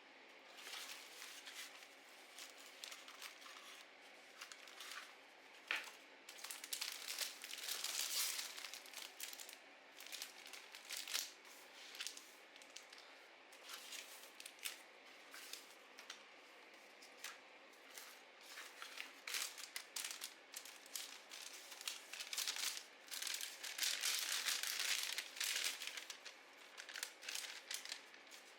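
Paper being handled: crinkling and rustling broken by short sharp ticks, with two longer stretches of crinkling, one about a quarter of the way in and one near the end.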